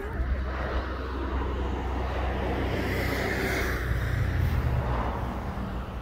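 Single-engine light aircraft's piston engine and propeller droning as it comes in low over the runway to land, swelling as it passes about halfway through and easing off near the end.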